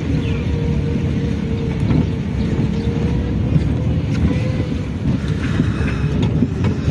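Car engine and road noise heard from inside the cabin while driving slowly: a steady low rumble with a faint steady hum above it.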